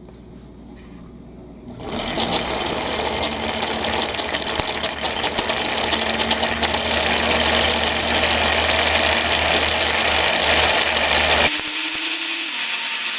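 Motor of a 1954 Kenmore 117.552 rotary sewing machine running the bobbin winder with the hand wheel clutch released, filling a bobbin with thread. It starts about two seconds in and runs steadily; near the end the low hum drops out and a falling whine follows as it slows. The winder never kicks out on its own.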